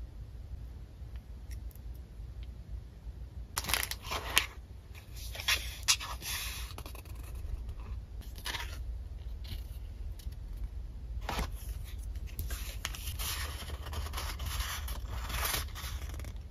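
Hands handling paper stationery and a plastic ruler: paper and plastic rustling and scraping, with two sharp taps a few seconds in. The paper rustle is densest near the end.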